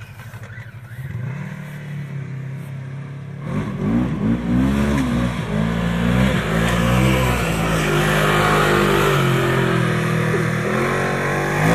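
A Polaris RZR 1000 side-by-side's twin-cylinder engine accelerating. It runs quieter at first; then, about three seconds in, it gets loud and revs up and down several times before holding a high, steady note.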